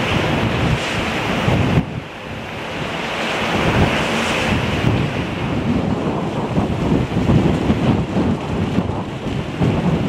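Gusty wind buffeting the microphone over the wash of choppy harbour water, with a brief drop in loudness about two seconds in.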